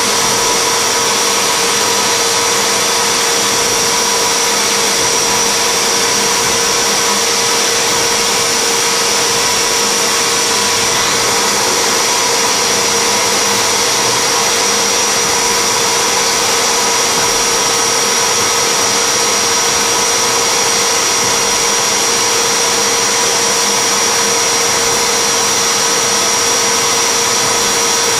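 CNC machine spindle running steadily at 6000 rpm while an indexable carbide-insert engraving tool cuts lettering 0.6 mm deep into acrylic, under a cold-air blast on the cut. The sound is a loud, even hiss with a few steady whining tones.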